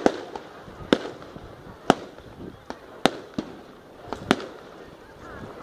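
Fireworks bursting in the air: a series of sharp bangs roughly once a second, two of them close together around the middle.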